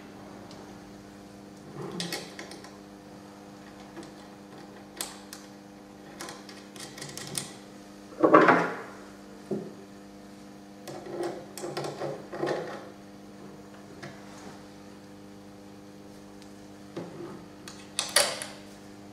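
Clinks and knocks of a nut driver and hands working on a small homemade electric motor, metal on its shaft and bearings and on the wooden base, with a louder clatter about eight seconds in and again near the end. A steady electrical hum runs underneath.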